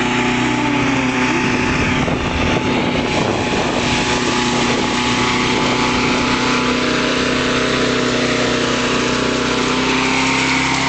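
Small single-cylinder lawnmower engine running on pure ethanol, running steadily at a constant pitch while the ride-on converted push mower is driven along.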